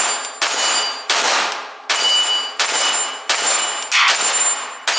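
A string of 9 mm pistol shots from a Canik TP9 Elite-S Combat fired two-handed, six shots about one every three-quarters of a second, each with a ringing echo. The pistol cycles without a stoppage.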